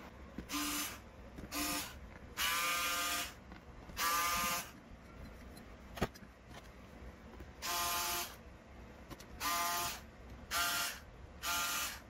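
Small electric screwdriver running in eight short bursts, each at a steady buzzing pitch, as it backs out the hex screws of an RC car's chassis top plate. A single sharp click about six seconds in.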